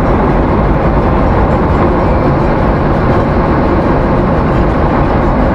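Steady cabin noise of an airliner in flight: engine and airflow noise heard from a passenger seat, a constant low rush.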